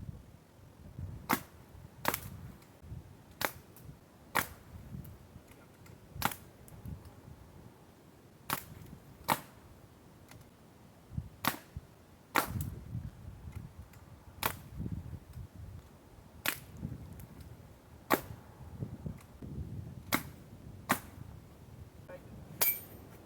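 Airgun shooting at cans: about fourteen sharp cracks at uneven gaps of one to two seconds.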